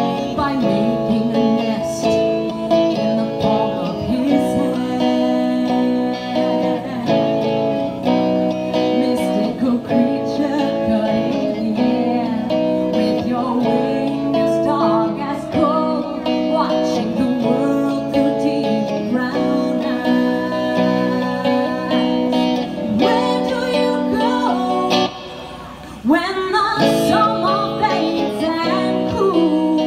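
Live acoustic guitar played with a woman singing, the music dropping briefly to a quieter spot about twenty-five seconds in.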